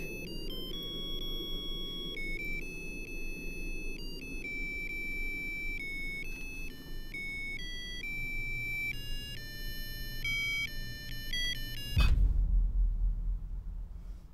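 A high, tinny electronic melody of single beeping notes, ringtone-like, over a low drone. About twelve seconds in the melody stops and a loud, low boom hits.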